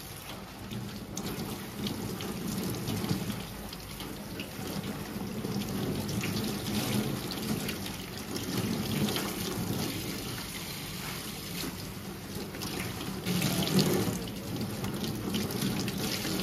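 Water running from a tap into a sink, steady throughout, with a few small knocks and clinks over it.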